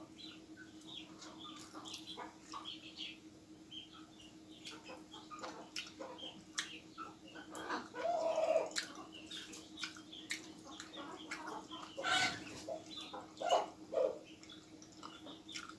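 Close eating sounds of a man eating by hand: chewing, wet lip-smacking and mouth clicks, with fingers working food on a steel plate, over a steady low hum.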